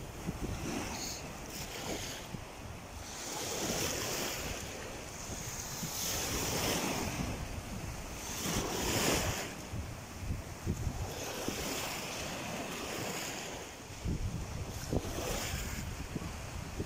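Small waves breaking and washing up a dark sand beach, the surf swelling and ebbing every few seconds, with wind buffeting the microphone.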